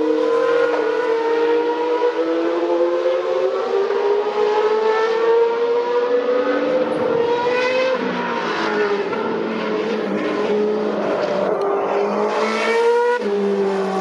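Boss GP open-wheel race car engines running at high revs on track, the note climbing steadily as the cars accelerate. The pitch drops sharply about eight seconds in and changes again near the end as a different car takes over the sound.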